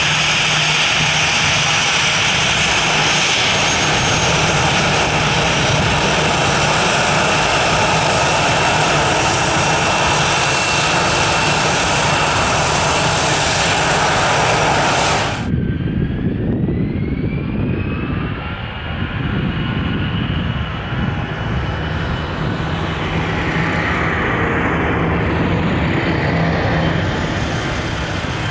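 Airbus A321 jet engines running close by as it taxis: a loud, steady rush with a high whine. About halfway through it cuts abruptly to another Airbus on the runway, its engines rumbling with a whine that rises in pitch as they spool up.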